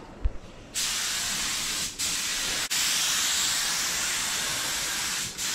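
Gravity-feed paint spray gun hissing steadily as compressed air atomises paint. It starts about three-quarters of a second in, after a short thump, and drops out briefly a couple of times around two seconds in and once near the end as the trigger is let off and pulled again.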